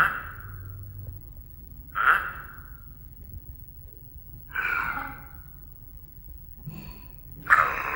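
Recorded dog sounds played through the PiDog robot's small built-in speaker: four short breathy huffs about two to two and a half seconds apart, the last the loudest.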